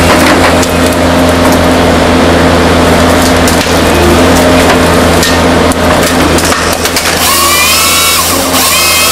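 Forestry harvester's diesel engine running at a steady working load while its Log Max harvester head grips small trees, with sharp cracks and snaps of wood and branches. From about seven seconds in, a high whine with several pitches rises and holds.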